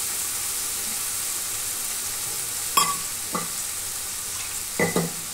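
Fried pointed gourd pieces and sesame paste sizzling steadily in oil and a little water in a steel kadai. A few short clinks of steel utensils come about three seconds in and again near the end.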